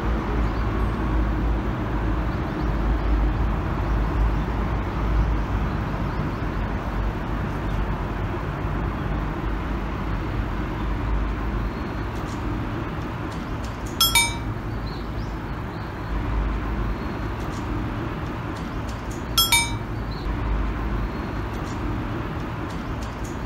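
Small bite bell on a fishing rod ringing twice, several seconds apart, as a fish pulls at the line. A steady low rumble continues underneath.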